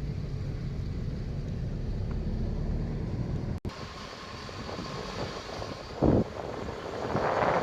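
Low wind rumble on a phone's microphone outdoors. The sound drops out for an instant about halfway through, then comes back quieter, with a brief loud noise about six seconds in.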